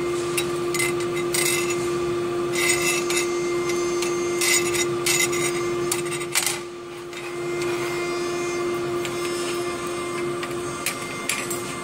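Bent aluminium channel-letter strip being handled and slid on a metal tabletop, giving short bursts of scraping and rustling over a steady machine hum. The bursts come mostly in the first half, with one more near the end.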